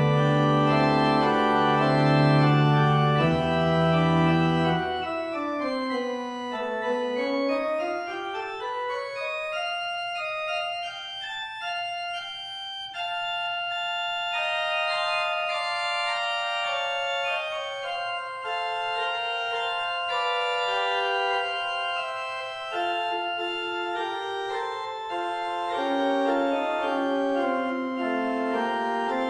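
Church organ played on two manuals and pedals: full sustained chords over low pedal notes, the pedal bass dropping out about five seconds in. A lower line then falls and climbs back up beneath held chords.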